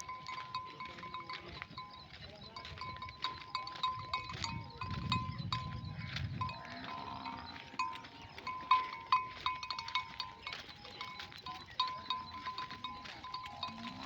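Sheep bells clinking irregularly: many small, overlapping strikes, each with a short ringing tone, shaken as the flock grazes and moves.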